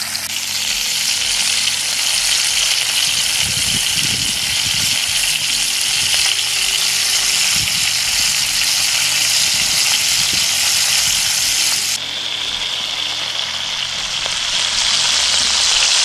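Pieces of perch and burbot with roe sizzling steadily as they fry in a pan, with a few soft low knocks. The sizzle drops a little and changes tone abruptly about twelve seconds in.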